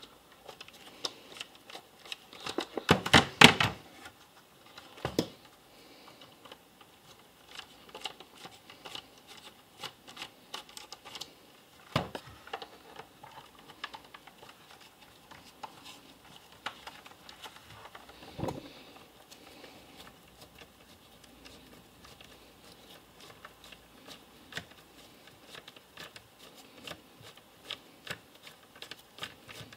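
Screwdriver working stubborn screws out of the plastic case of a Tronic TLG 500 B1 battery charger: a steady run of small clicks and scrapes from the plastic housing. There is a louder clatter of knocks about three seconds in, and a few single knocks later.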